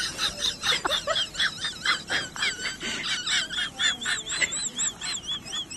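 Many quick, high chirps, several a second, like small birds twittering.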